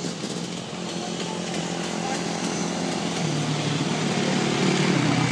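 Dirt bike engines running on the track, the drone growing steadily louder from about halfway through as a bike approaches.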